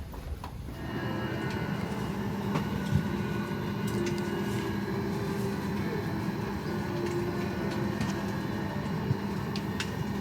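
Steady hum inside the cabin of a Boeing 737-800, a few held tones over an even rush, with a couple of faint clicks.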